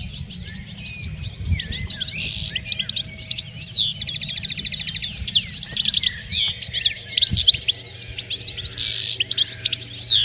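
European goldfinches twittering in a dense chorus of quick chirps, gliding notes and buzzy trills. It comes partly from a lure recording of goldfinch song played from a speaker to draw wild goldfinches onto glue sticks.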